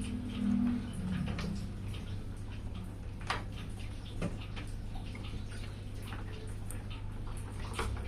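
Scattered light clicks and taps, a few sharper ones, over a steady low hum.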